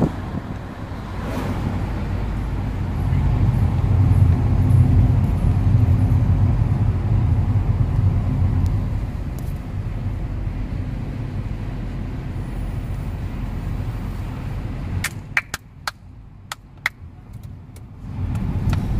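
Car cabin noise while driving: a steady low rumble of engine and tyres heard from inside the car, swelling a few seconds in. Near the end the rumble briefly drops away and a handful of sharp clicks sound.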